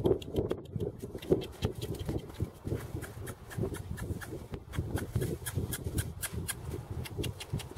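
Hooves of a quarter horse mare and a person's footsteps crunching in snow as they walk, a quick, uneven run of crunches, with wind rumbling on the microphone.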